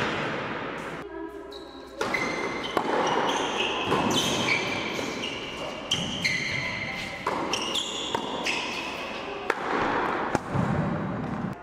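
Tennis ball bouncing on an indoor hard court, a knock about every second or so, with short high squeaks and the echo of a large hall.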